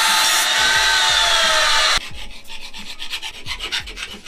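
Angle grinder cutting steel: a loud, steady grinding hiss with a whine that sags in pitch, stopping abruptly about two seconds in. Then a hand file scraping across a flat steel bar held in a vise, in quick repeated strokes.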